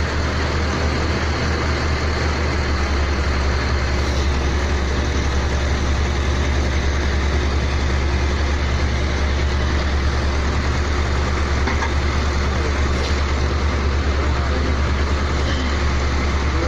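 Engine running steadily, a loud, even low drone with no change in speed.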